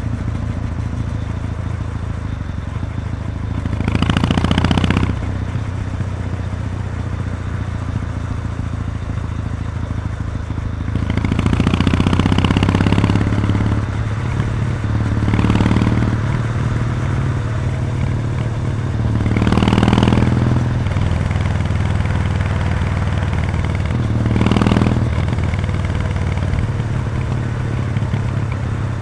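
Kawasaki W800's air-cooled parallel-twin engine running on the move through the stock muffler with its baffle removed. The exhaust note is steady and low and swells louder about five times, as with opening the throttle.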